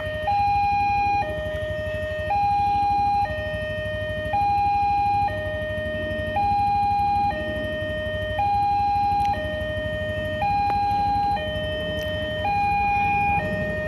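Railway level-crossing warning alarm sounding a two-tone electronic signal, a higher and a lower tone alternating about once a second, warning that a train is approaching while the barriers are down.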